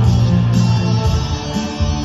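Rock band playing live, with guitars to the fore over a strong bass line.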